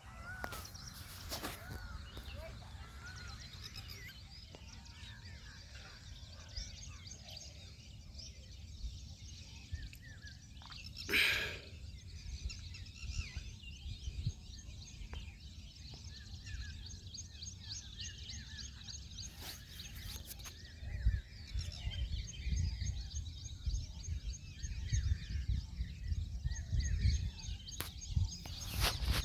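Small birds chirping repeatedly over a low, unsteady rumble that grows louder in the second half. A short, loud, noisy burst comes about eleven seconds in.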